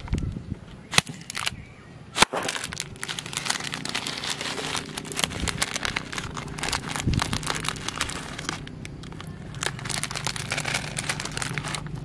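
Plastic snack packet crinkling and rustling as it is torn open by hand, with two sharp snaps about one and two seconds in.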